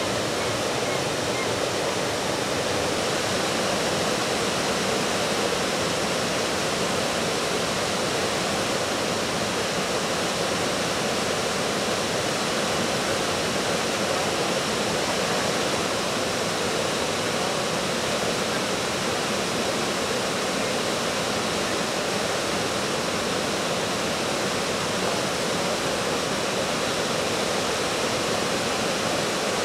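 Whitewater of river falls and rapids rushing steadily, with no breaks or changes in level.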